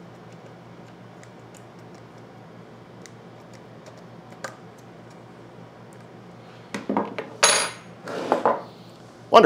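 Small metal hand tools clicking and clinking while a screw on the pump motor's capacitor bracket is driven in, with light scattered ticks at first. Then, from about seven seconds in, a run of louder metallic clanks and rattles, one with a brief ring, as the tools are handled and set down.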